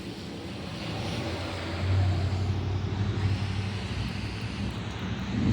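Outdoor background noise: a steady hiss with a low rumble that swells about two seconds in and then eases. No siren sounds.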